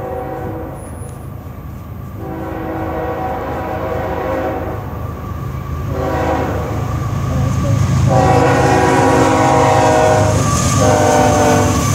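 CSX freight locomotive's air horn sounding the grade-crossing warning as the train approaches the crossing: a long blast, a short one, then long blasts, each with several tones sounding together. Under the horn, the low rumble of the diesel locomotive grows louder as it nears.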